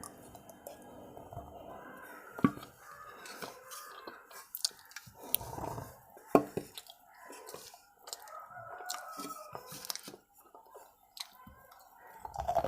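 Biting and chewing water-soaked white chalk: soft, wet chewing broken by a few sharp crunchy bites, the loudest about two and a half and six and a half seconds in.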